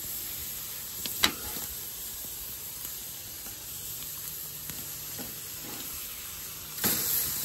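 Chicken breasts sizzling on a hot charcoal grill, a steady hiss with a single sharp click about a second in. The sizzle gets louder near the end.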